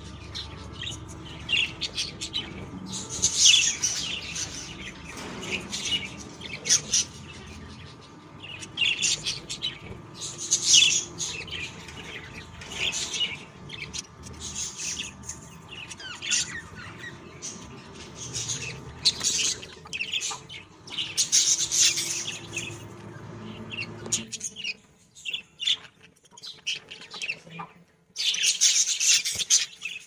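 Budgerigar chicks in the nest calling: high, raspy chirping that comes in short bouts every couple of seconds.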